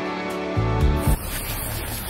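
Background music with a steady low beat that cuts off about a second in, replaced by a noisy rumbling sound effect.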